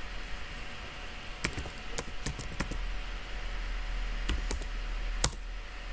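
Computer keyboard typing: about eight irregular keystrokes, with a louder key press about five seconds in, over a faint steady hiss.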